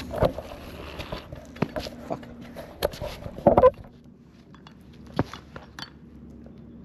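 Scattered knocks, clicks and light clinks of handling on a work site, with a louder cluster of clatter about three and a half seconds in. A faint steady hum lies underneath and fades out a little after that.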